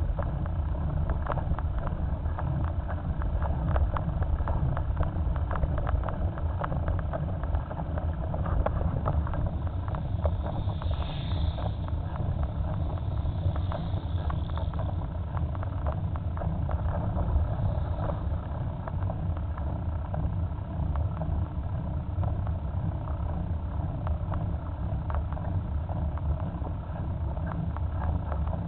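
Steady wind buffeting and tyre rumble on a camera mounted low on a moving bicycle, with frequent small rattles from the mount. A motorcycle passes close by about halfway through.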